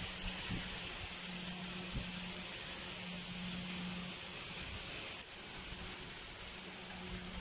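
Heavy rain pouring down in a steady hiss, under a low steady hum, with a single sharp click about five seconds in.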